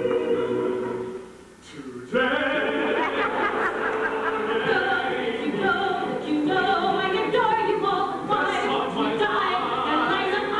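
Show-tune singing from a stage musical: a held sung chord fades out about a second in, and after a brief dip voices and accompaniment come back in at about two seconds with quick-moving sung lines.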